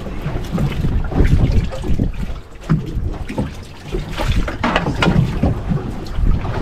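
Wind buffeting the microphone on an open boat, with water splashing and sloshing in the live well as bait is handled.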